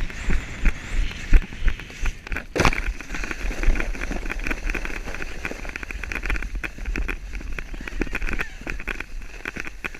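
Footsteps crunching in snow with clothing rustle, many quick crunches and one louder crackle a few seconds in, over a constant low rumble of wind on the microphone.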